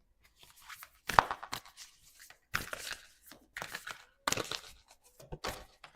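Tarot cards being shuffled by hand, in about five short, papery bursts a second or so apart.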